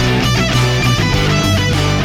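Background rock music with electric guitar and a driving beat; the bass line changes about a second in.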